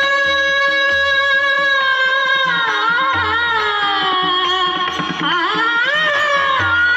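Marathi devotional abhang: a woman sings in a very high voice, holding one long note, then sliding down through wavering ornaments, over a drum accompaniment.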